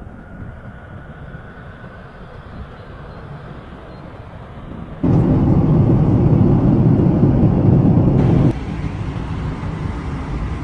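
Jet airliner noise: a steady rumbling roar with a faint high whine at first. About five seconds in it jumps suddenly much louder for some three seconds, then drops back just as suddenly to a moderate roar.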